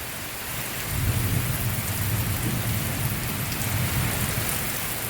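Rain falling steadily during a severe thunderstorm. A long, low rumble of thunder starts about a second in and goes on for several seconds.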